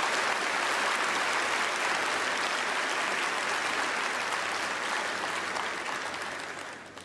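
Large audience applauding, the clapping steady at first and dying away near the end.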